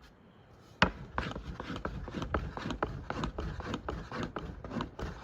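Knife chopping on a wooden board: one sharp knock about a second in, then a steady run of short chops at about three a second.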